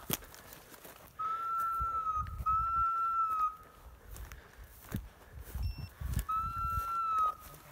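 Three long, steady whistle notes of about a second each, the first two close together and the third a few seconds later, each dipping slightly in pitch as it ends. Faint thuds and clicks lie between them.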